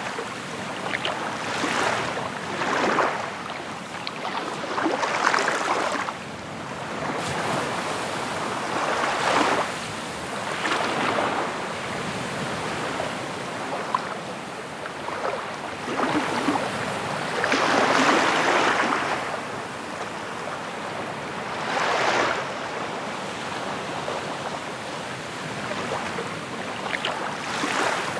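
Waves washing in on a shore, a rushing hiss that swells and falls back every few seconds.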